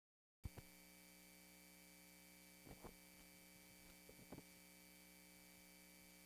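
Near silence: a faint steady electrical hum, with a few soft knocks, about half a second, three seconds and four seconds in.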